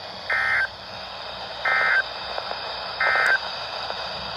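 NOAA Weather Radio EAS end-of-message code (SAME "NNNN"): three short bursts of digital data tones about a second and a half apart, over steady radio hiss. It marks the end of the weekly test broadcast.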